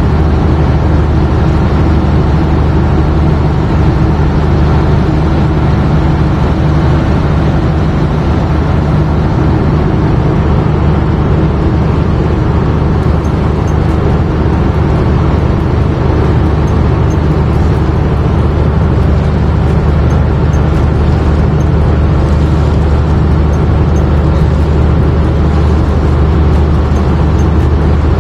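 Steady, loud low hum of running machinery, unchanging throughout.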